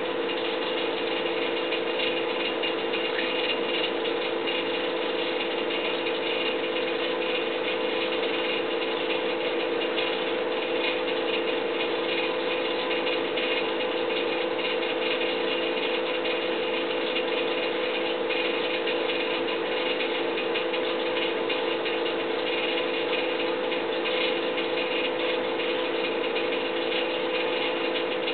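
Steady mechanical drone of unknown origin, with two held humming tones and a fainter high hum on top, unchanging throughout.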